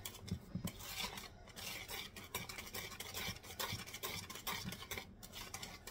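Wire whisk beating a thin cobbler batter of flour, sugar and milk in a mixing bowl: faint, repeated swishing and scraping of the wires against the bowl.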